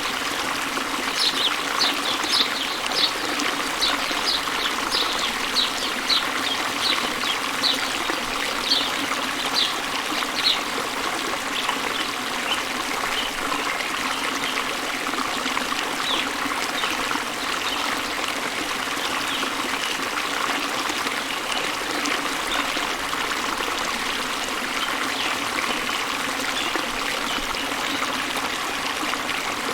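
Steady running water of a stream. Over it a bird gives a quick series of short, high chirps, about two a second, for the first ten seconds or so, with fainter scattered calls later.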